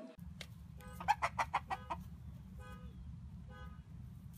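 A chicken clucking: a quick run of short clucks, then two longer calls about a second apart, over a low steady rumble.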